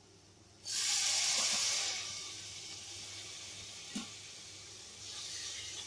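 Curd hitting a hot tomato-onion masala in oil and sizzling: a sudden loud sizzle about a second in that eases into a steady sizzle. A single light knock near the middle.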